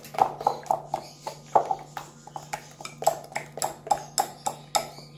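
A hand beating a thin flour-and-egg batter in a glass bowl: quick wet slaps and squelches, about three a second.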